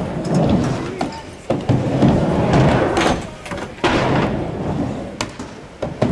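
Skateboards on a mini ramp: wheels rumbling as they roll across the ramp, with several sharp clacks as boards strike the deck and coping.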